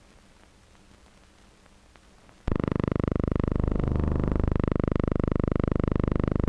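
Near silence, then about two and a half seconds in a loud, steady drone with many evenly spaced pitches starts suddenly and holds.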